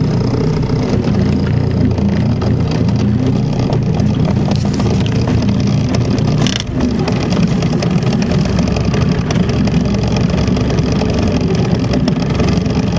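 Fishing boat's motor running steadily under way, a loud continuous drone with water and hull noise, briefly dipping about halfway through.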